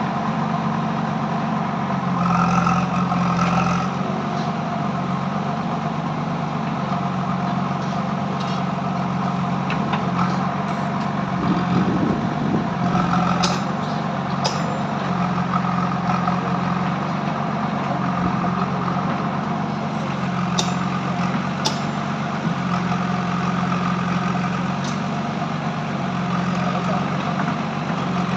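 An engine running steadily, its low note stepping up and down every couple of seconds, with a few sharp metallic clicks over it.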